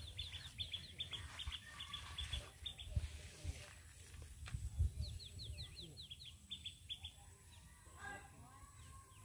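A small bird calling in rapid runs of short, high, downward-slurred chirps, one run in the first few seconds and another about five seconds in, over a low rumble.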